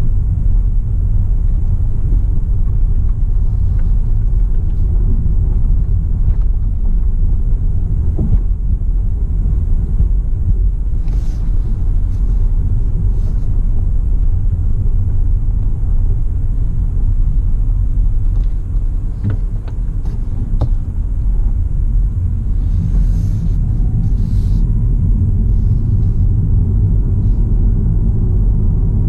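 Steady low rumble of a Mini Countryman plug-in hybrid driving at low speed, heard inside the cabin, with a few faint clicks along the way.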